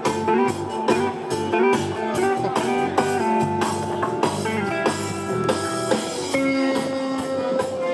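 Blues band playing an instrumental passage: electric guitar lead over drum kit, with a steady beat.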